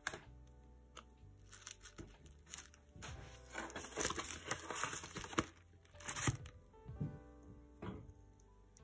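Paper and cardboard rustling and crinkling in irregular bursts as a tissue-paper-wrapped parcel is handled and put into a cardboard mailer, loudest in the middle, over soft background music.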